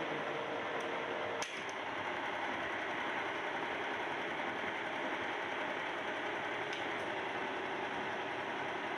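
Steady hum of workshop machinery, with a single sharp click about one and a half seconds in.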